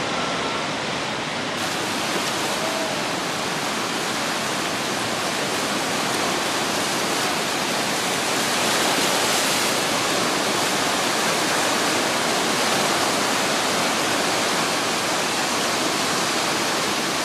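Steady roar of breaking ocean surf, a continuous wash of white water, slightly louder about halfway through.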